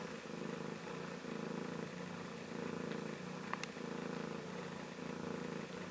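Domestic cat purring steadily, the purr pulsing in a regular rhythm with her breaths in and out. She is a mother cat in labour, purring between the births of her kittens.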